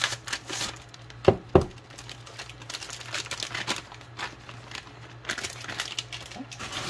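Clear plastic parts bag crinkling and rustling as it is handled and opened, with two sharp knocks about a second and a half in. A faint steady low hum runs underneath.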